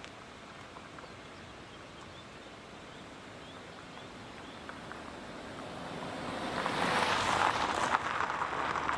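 Outdoor ambience: a faint steady hiss with a few short high chirps, then a rushing, crackly noise swells up over a few seconds and becomes loud near the end.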